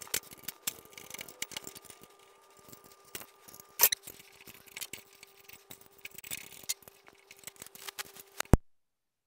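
Small metal clicks and clinks of bolts and brackets being fitted by hand to a metal longarm quilting frame, with a louder knock about four seconds in and a sharp knock near the end, after which the sound cuts off.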